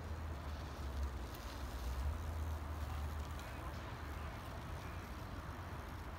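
Low, fluctuating wind rumble on the microphone over faint open-air background noise, with no distinct event.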